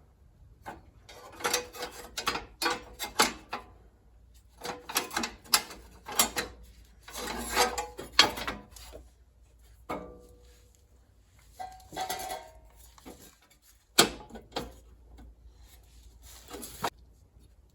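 Sheet-metal shroud panel and its fasteners being worked into place by hand on a lawn tractor: irregular clicks, knocks and scraping in bursts, with one sharp knock about two-thirds of the way through.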